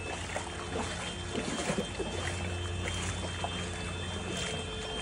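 Floodwater sloshing and trickling in short irregular splashes, over a steady low hum.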